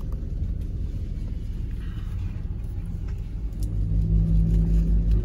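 Airbus A320neo engines running, heard from inside the cabin as a steady low rumble. It grows louder about three and a half seconds in, with a steady low hum on top.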